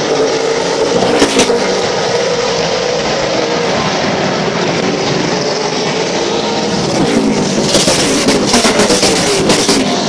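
A pack of late model stock cars racing on a paved oval, their engines running hard at speed. Near the end the pack passes close, louder, with the engine pitch falling and a run of sharp crackles.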